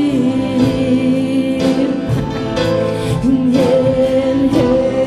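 Live church worship band playing a slow song, with long held sung notes and several drum and cymbal hits.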